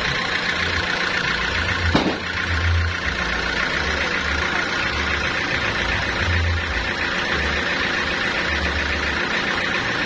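Sawmill engine running steadily at idle while the log is positioned, with one sharp knock about two seconds in.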